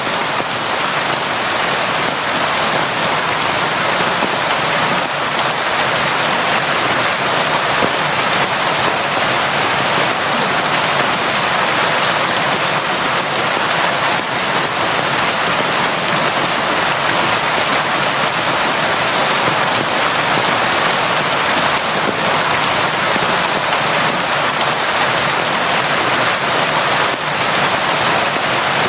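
Steady, constant rain falling, an even dense patter of drops on surfaces.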